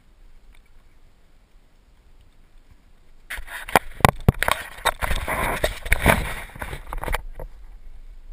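Loud rustling and knocking right at the microphone of a hand-held action camera as it is gripped and turned, starting about three seconds in and cutting off suddenly some four seconds later.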